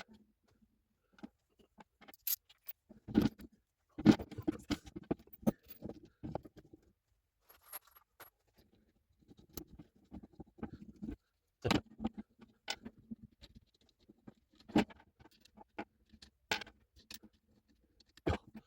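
Irregular light clinks, taps and knocks of small hardware and wooden parts being handled, with the loudest knocks about 4, 12 and 15 seconds in.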